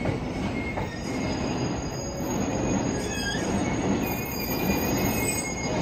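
E657 series limited express electric train rolling along the platform, its wheels squealing with thin high tones over the rumble of the wheels on the rails.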